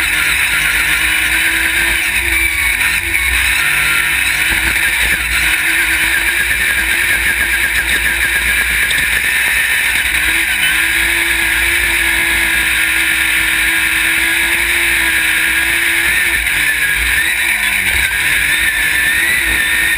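Off-road race buggy's engine running at speed, loud and close to the onboard camera. Its pitch holds steady for long stretches and dips briefly a few seconds in and again near the end, as the revs drop and pick up.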